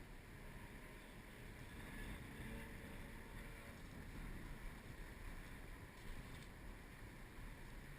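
Faint, steady outdoor background noise: a low rumble with a light hiss, and no distinct events.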